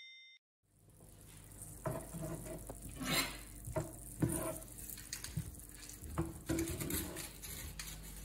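Kitchen sounds: a utensil knocking and scraping against a frying pan and dishes, starting about a second in as a string of irregular knocks over a low hum.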